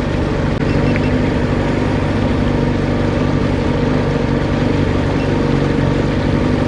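Johnson 40 hp VRO two-stroke outboard motor running steadily and evenly, sounding healthy.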